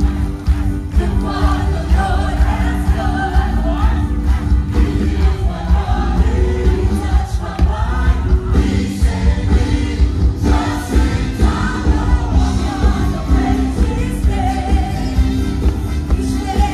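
Music with a group of voices singing over a heavy bass beat.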